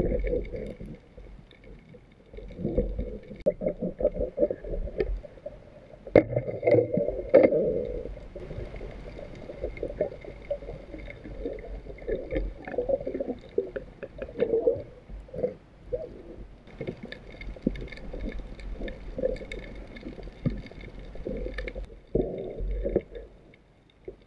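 Muffled water gurgling and sloshing heard underwater, surging unevenly, with scattered knocks and clicks; loudest about six to eight seconds in.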